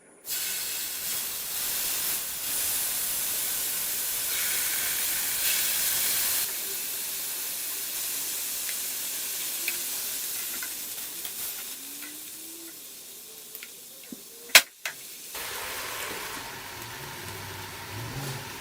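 Soy-marinated beef tri-tip sizzling in a hot skillet, a steady frying hiss that is louder for the first several seconds and then softer. A single sharp click near the end.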